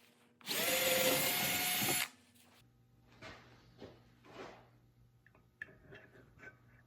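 A power tool's motor runs for about a second and a half and stops, followed by a few soft scrapes and a sharp click.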